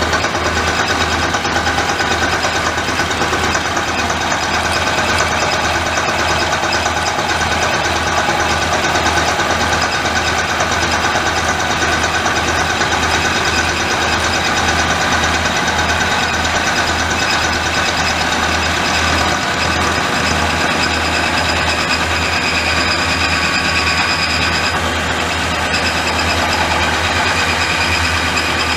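Milling machine running with its cutter taking heavy passes of about 50 to 60 thousandths through a steel workpiece. The motor and cutting noise hold steady, with a regular low throb throughout.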